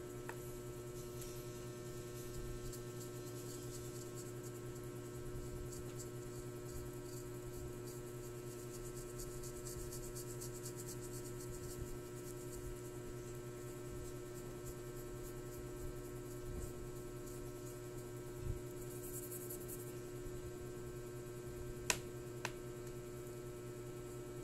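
Steady low hum in a quiet room, with a few faint clicks, two of them close together near the end.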